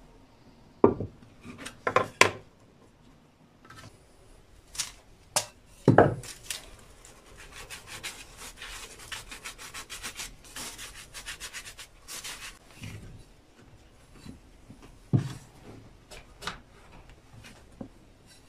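A wooden molding flask set down on a wooden molding board with a few sharp wooden knocks, the loudest about six seconds in. Then molding sand is shaken through a wire-mesh sieve onto the pattern with a steady gritty rustle, followed by softer scrapes as sand is scooped in.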